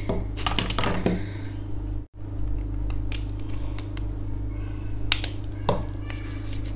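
Small plastic moisturiser bottle being handled, with a few sharp clicks from its cap and the bottle, over a steady low hum.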